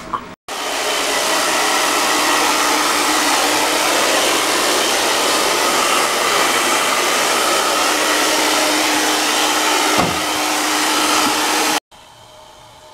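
Handheld hair dryer blowing steadily: a loud airy rush with a steady whine. It cuts off abruptly near the end.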